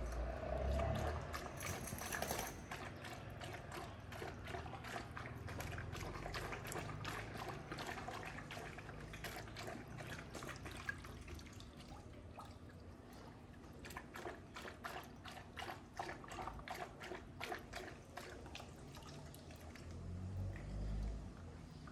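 Kangal dogs lapping water from a bowl: a quick, steady run of small wet laps and splashes.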